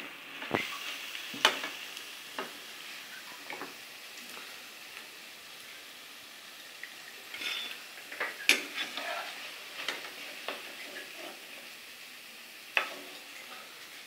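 Battered cauliflower pieces deep-frying in hot oil in a kadhai with a steady, quiet sizzle. A perforated steel slotted spoon clinks and scrapes against the pan several times at irregular moments as the fried pieces are lifted out.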